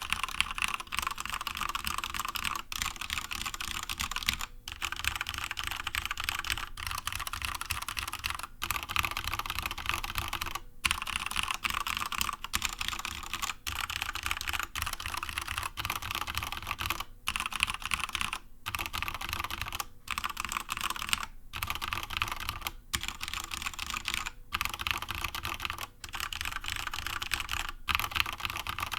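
Typing on a Corsair K70 mechanical keyboard with linear Cherry MX Red switches, a sound test of several keycap types: tall SA caps, Cherry double-shots, thin ABS and PBT caps and the stock laser-etched ABS caps. The key presses come in quick runs, each broken off by a short pause.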